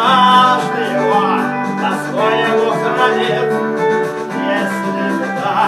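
Song music without lyrics: guitar accompaniment under a sliding melody line.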